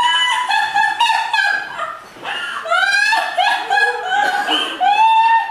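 High-pitched, squeaky voice chattering in short phrases that glide up and down, with no recognisable words.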